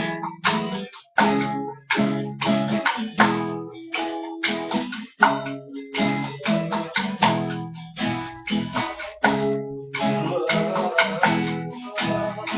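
Acoustic guitar (violão) strummed in a steady rhythm, an instrumental passage between sung verses of a romantic song.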